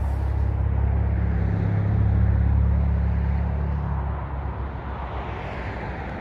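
A motor vehicle's engine rumbling past, a low steady drone that swells about two seconds in and then fades.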